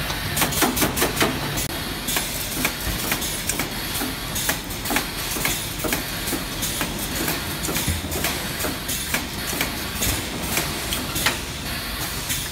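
Sixth-generation automatic filter cage welding machine running, its ring of pneumatic welding heads clacking as it welds the wire cage. A quick run of about six clacks comes about half a second in, then irregular clicks and clacks over a steady mechanical noise.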